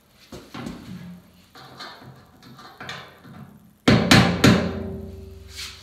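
A hammer striking a fitting on top of a new metal fuel tank: light taps and scrapes, then three hard blows a little under four seconds in, with the tank ringing on after them.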